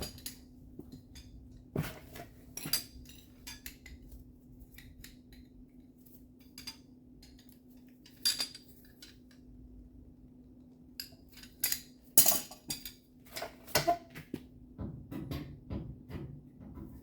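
Irregular light metallic taps and clinks of hand tools on automotive sheet metal, with a cluster of sharper strikes about twelve seconds in, over a steady low hum.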